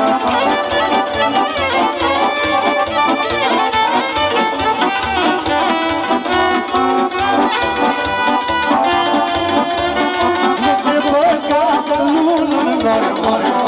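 Live instrumental music from a Korg keyboard and a violin, playing a lively melody over a steady beat.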